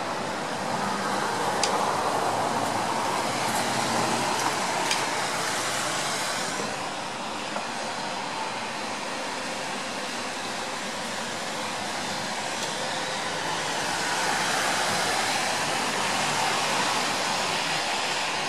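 Steady outdoor hiss in light rain, swelling for a few seconds near the start and again near the end, with a couple of faint ticks.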